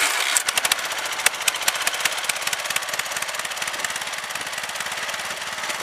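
Snapper LT11 lawn tractor's small gasoline engine running just after starting, with a rapid pulsing beat that is uneven and popping for about the first second, then settles into a steadier fast run.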